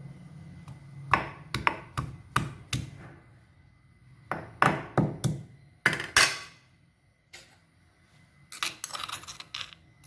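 Kitchen utensils knocking and clinking in groups of sharp strikes, with a short quick rattle near the end.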